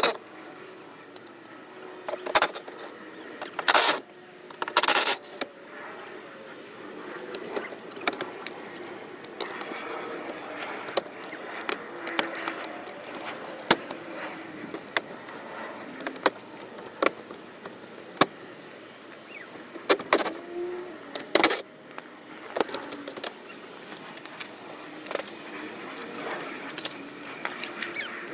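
Fasteners being worked loose from a car's plastic under-engine splash guard: scattered small metallic clicks and clinks, with a few short, loud, rasping bursts, twice in quick pairs, near the start and again about two-thirds of the way in.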